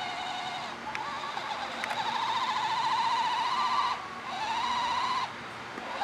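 Small electric motor of a radio-controlled toy car whining in bursts as the remote is worked: a long stretch, a shorter one, and a brief one at the end, its pitch wavering. The car barely moves, its wheels spinning against dirt and grass.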